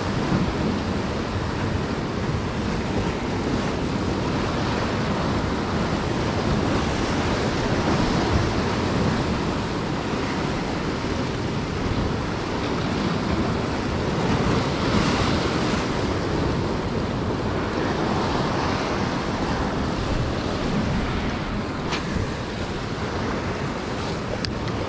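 Sea surf washing steadily, with wind buffeting the microphone. Two brief faint clicks near the end.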